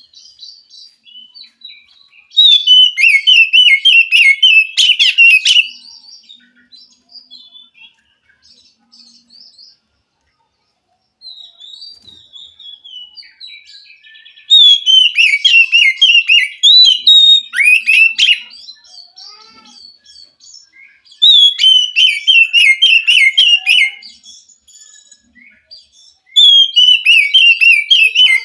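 Oriental magpie-robin (kacer) singing: four loud bursts of rapid, chattering high notes, each a few seconds long, with quieter twittering between them and a brief pause about a third of the way in.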